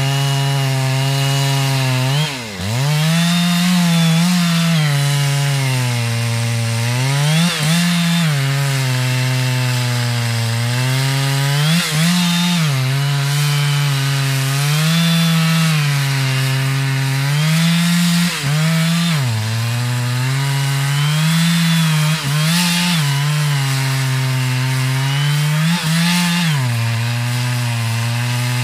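Chainsaw cutting into the base of a large standing red oak, the engine held at high revs, its pitch sagging under load and recovering about every four to five seconds as the bar is worked through the cut.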